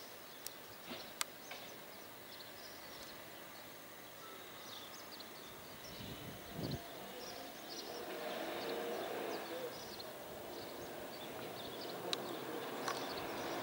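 Faint outdoor ambience: small birds chirping and a few sharp clicks early on, then a low rumble that grows from about eight seconds in.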